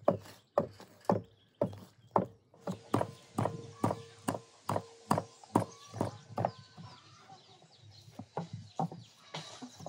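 Wooden pestle pounding in a wooden mortar, crushing spices: a steady run of hollow knocks, about two a second, that grow softer for a couple of seconds near the end before picking up again.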